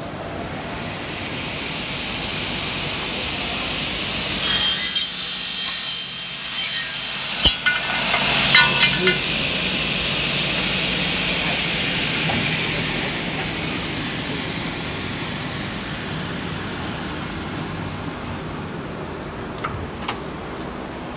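An 08S double-head aluminium cutting saw running. Between about four and nine seconds its blades cut through an aluminium profile with a high, ringing screech and a sharp knock partway through, then the saw keeps running without cutting.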